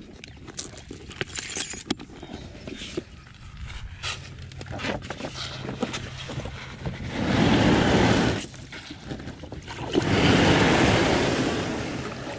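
Plastic sit-on-top kayak being pushed off the beach: a few light knocks and clicks of gear, then two long scraping slides of the hull over sand and gravel, about seven and ten seconds in.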